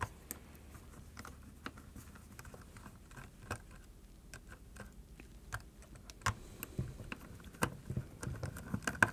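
Faint, scattered small clicks and taps of a screwdriver and fingers on the plastic back case of a handheld thermal camera while its screws are being undone. The clicks come more often near the end.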